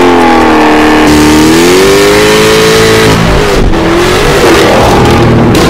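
Jaguar F-Type Project 7's supercharged V8 accelerating hard, loud throughout. The engine note climbs in pitch, drops sharply about three seconds in, then climbs again.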